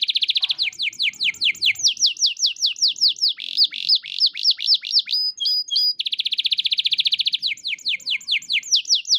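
Domestic canary singing: it opens with a rapid rolling trill, then a long run of quick downward-slurred whistles at about four a second, with a second rapid trill about six seconds in before the slurred notes return.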